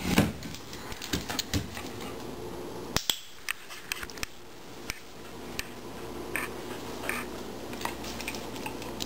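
Scattered short clicks and taps from a Border Collie stepping onto and off a small wooden chair on a vinyl kitchen floor: claws and paws on the floor and chair seat, with a heavier knock at the start.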